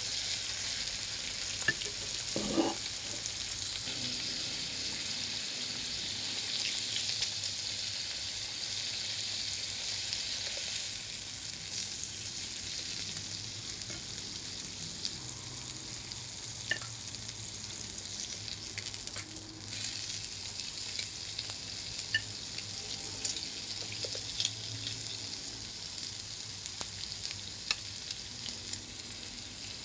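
Pork slices sizzling on an electric grill pan: a steady frying hiss with scattered sharp spitting pops, easing slightly after about ten seconds.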